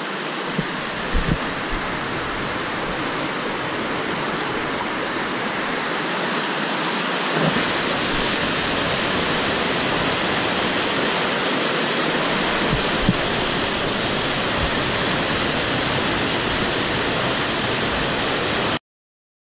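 Steady, loud rush of a swollen mountain river pouring over a small waterfall and rapids, with a few low thumps. It cuts off suddenly near the end.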